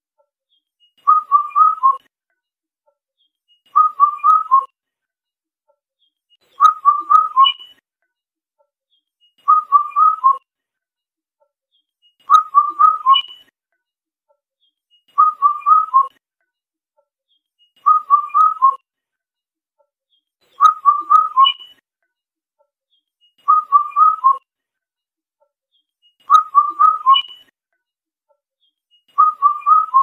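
Indian cuckoo calling its four-note whistled phrase, the last note lowest. The phrase repeats about every three seconds, eleven times.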